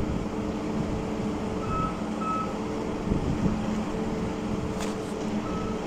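A heavy machine's reversing warning beeper over a diesel engine running steadily. Two short high beeps sound about two seconds in, and more start near the end.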